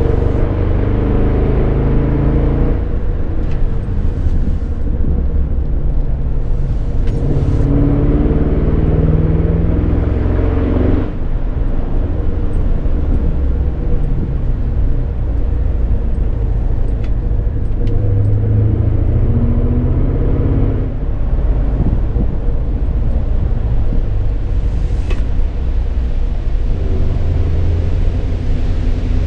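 Ford Mustang's engine running as the car drives a winding road, heard from inside the cabin, its revs rising and falling through the bends. The sound dips briefly about eleven seconds in.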